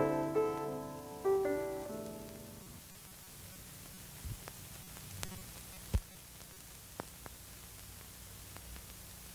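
Closing piano music, a few last notes ringing and dying away within the first three seconds, followed by a faint steady hiss with a few scattered soft clicks.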